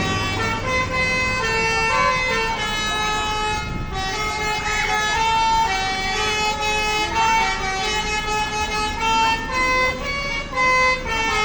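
Tour bus's 'telolet basuri' multi-tone air horn playing a melody, one held note after another changing every fraction of a second.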